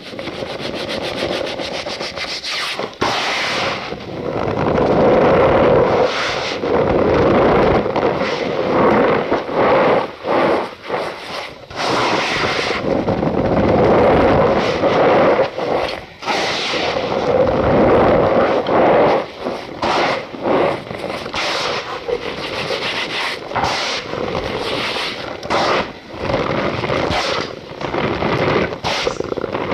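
Cornstarch powder being squeezed and rubbed, a dense crunchy squeaking made of many quick crackles. It swells and eases every second or two, with a few brief pauses.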